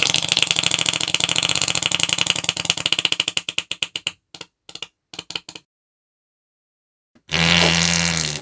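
Fart sounds: a long sputtering fart made of rapid pops that slow and break up after about three seconds, a few short sputters, then after a pause a shorter, steadier fart with a low tone.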